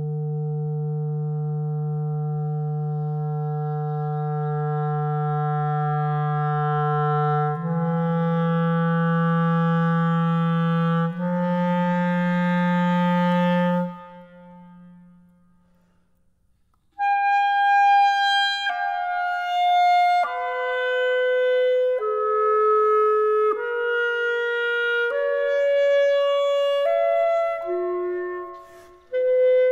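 Slow instrumental music. Long held low notes step up twice and fade out about halfway through. After a short pause, a slow melody of held higher notes follows.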